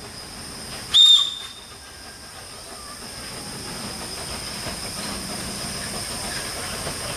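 Narrow-gauge steam locomotive giving a short, high-pitched whistle about a second in, then its running and hiss grow steadily louder as it approaches.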